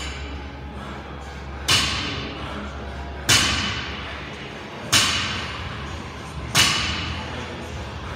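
Loaded barbell with bumper plates touching down on a rubber gym floor at the bottom of each deadlift rep: four heavy thuds about one and a half seconds apart, each with a short echoing tail.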